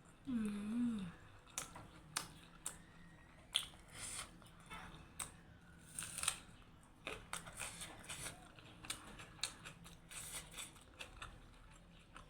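Close-up eating sounds: chewing with irregular wet mouth clicks and smacks. A short hummed "mm" slides up and down about half a second in.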